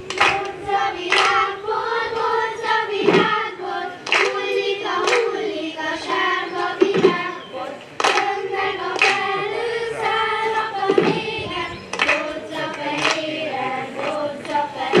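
A group of children singing a folk song together in unison, with sharp claps about once a second keeping time.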